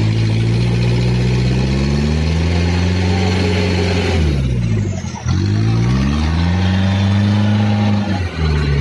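Truck engine revving hard under load as it tows a loaded truck with a broken axle shaft on ropes. It makes two long pulls, each rising in pitch, the first easing off about four seconds in and the second near the end.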